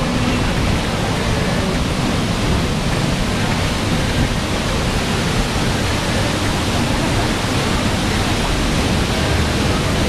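Waterfall: a steady, loud rush of falling water.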